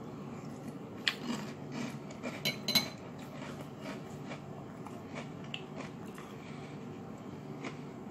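Metal spoon clinking against a ceramic cereal bowl, with a handful of sharp clinks in the first three seconds and a few fainter ones later, over a faint low steady hum.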